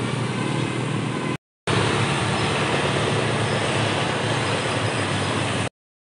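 Motor vehicle engine running close by, cut out briefly about a second and a half in, then a rougher, noisier engine sound that stops abruptly near the end.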